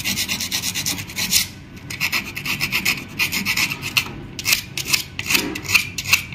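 Sandpaper rubbed in quick short strokes along the edge of a sewing machine's steel face plate, a rapid scratchy rasp with a couple of brief pauses. The sanding is rounding off a sharp burr on the plate's inner edge that had been cutting the thread.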